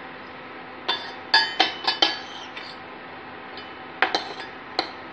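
Steel spoon clinking and scraping against a stainless steel pot while scooping syrupy pieces out of it: a quick run of sharp clinks about a second in, one or two more in the middle, and another run near the end.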